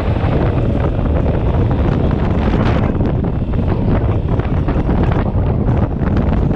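Wind buffeting the microphone on a moving scooter: a loud, steady rush with rapid crackling gusts, covering the ride's engine and road noise.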